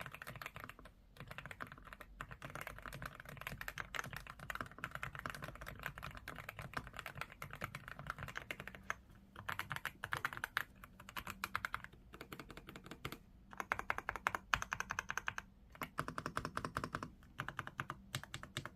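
Fast typing on an Aula mechanical keyboard fitted with Outemu Cream Pink switches: dense runs of key clacks broken by several brief pauses.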